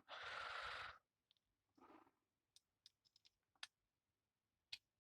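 A short hiss in the first second, then a few faint, scattered clicks of a screwdriver on the terminal screws of a rewirable UK mains plug as they are checked for tightness.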